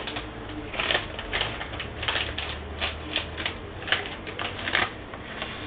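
A plastic packet of grated coconut being handled and opened: irregular light crinkling clicks and rustles.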